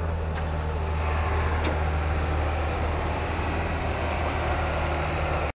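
A vehicle engine idling steadily, a low even hum that does not rise or fall.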